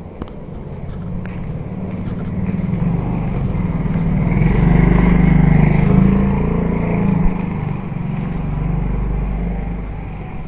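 A motor vehicle engine running, growing louder to a peak about halfway through and then fading as it passes.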